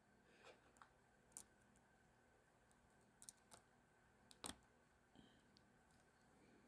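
Faint, scattered clicks of the small parts of a ratcheting screwdriver being handled and fitted together, the loudest about four and a half seconds in.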